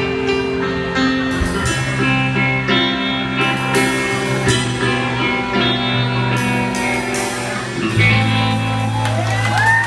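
Live rock band playing an instrumental passage: electric guitar over bass guitar and drums with cymbal hits, landing on a low held chord about eight seconds in. A whoop from the crowd rises near the end.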